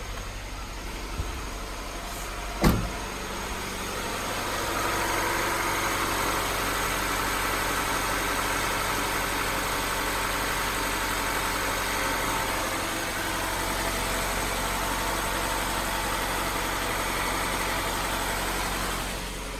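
Honda CR-V's B20B four-cylinder engine idling steadily on freshly fitted spark plugs and plug wires, with no misfire to the owner's ear. A single sharp knock comes about three seconds in, and the engine sound grows a little louder a second or so later.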